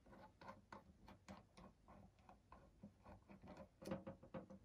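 Faint, quick clicking of a small screwdriver working a screw out of the metal case of a RAK V2 Helium miner, a few clicks a second, with a louder cluster about four seconds in.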